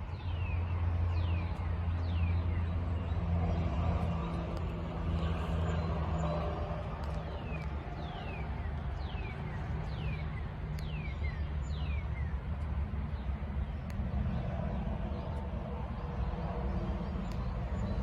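Low, steady engine rumble of a vehicle running nearby, with a bird giving a string of short, falling chirps in the middle.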